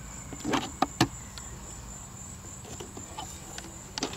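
Metal latches and lid of a wooden ammunition crate clicking and knocking as it is unfastened and opened by hand, with a couple of sharp clicks about a second in and quieter handling after. Steady high insect trilling runs underneath.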